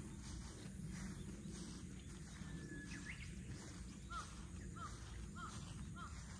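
A bird calling: a brief whistled note near the middle, then a run of short, evenly repeated notes about every half second through the second half, over a low steady background rumble.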